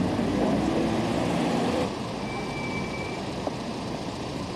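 Town-street traffic noise picked up by a camcorder microphone. The first couple of seconds are louder and carry a faint voice. After a sudden cut, a steadier, quieter traffic hum continues.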